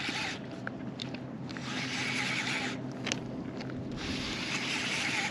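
Baitcasting reel being cranked on a steady retrieve: a rubbing, whirring noise of the spool, gears and braided line. It comes in stretches about a second long with a few light ticks.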